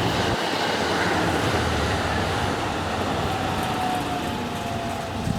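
Limited express train running through a station: a loud, steady rumble of wheels on rail, with tones that slide slowly down in pitch as it goes by.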